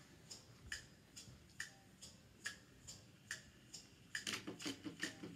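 Faint, evenly spaced ticking, about two ticks a second, turning into busier clicking and light knocks about four seconds in.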